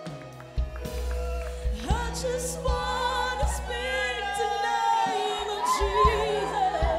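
Choir singing a gospel worship song over a steady low accompaniment. The voices come in about two seconds in with held, wavering notes.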